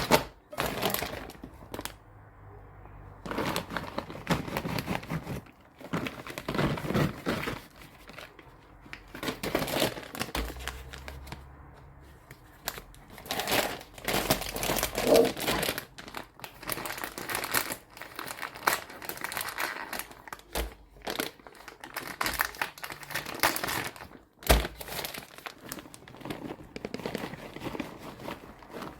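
Crinkling and rustling in irregular bursts, like crinkly wrapping or foil being handled and crumpled.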